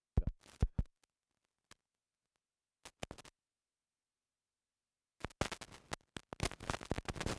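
A few sharp knocks in the first second and a couple more about three seconds in, then dense scratchy rustling from about five seconds in.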